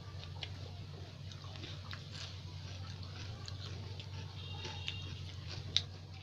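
Close-up eating of pani puri: the crisp fried puri shells cracking and crunching between the teeth with chewing, in a run of small crunches and a sharp crack near the end.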